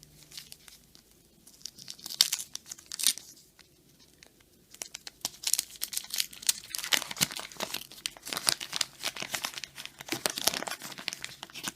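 Paper wrapper of a trading-card pack being torn open and crinkled by hand: a few scattered rips and crackles at first, then dense, continuous crinkling from about five seconds in.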